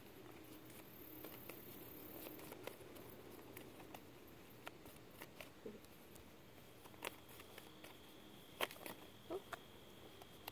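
Faint flicks and taps of a deck of oracle cards being shuffled by hand, with a few sharper clicks in the second half as cards are handled and dealt out.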